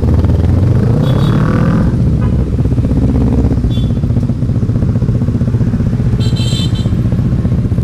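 Motorcycle engine running under way, its revs rising briefly about a second in and then settling back to a steady pitch. A few short high chirps sound over it.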